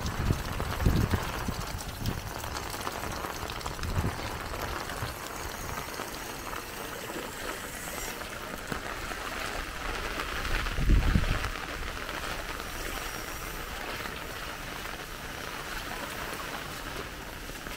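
Steady hiss of heavy rain, with a few dull low thumps, the loudest about eleven seconds in.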